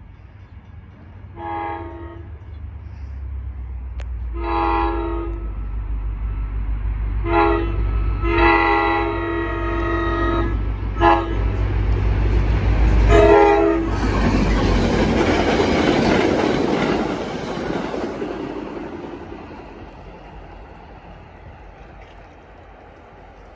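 NJ Transit GP40 diesel locomotive's multi-note air horn sounding six blasts for a grade crossing as the train approaches, one of them held about two seconds, over a growing diesel engine rumble. Then the train passes with loud wheel and rail noise that fades away over the last few seconds.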